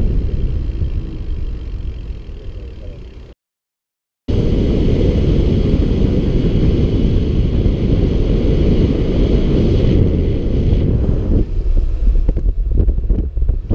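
Wind buffeting the microphone of a camera riding on a moving bicycle, a steady rough rumble with road noise. About three seconds in it fades and drops out completely for about a second at an edit, then resumes. A few clicks and knocks come near the end.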